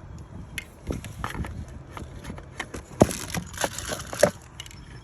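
Scattered clicks and knocks of hand tools and bolts being handled during work on the boost solenoid mounting, with a quick cluster of the loudest knocks about three to four seconds in.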